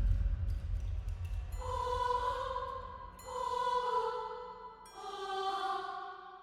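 Eerie horror sound effect: a deep low rumble dies away, then three held choir-like tones sound one after another, each starting sharply and fading out.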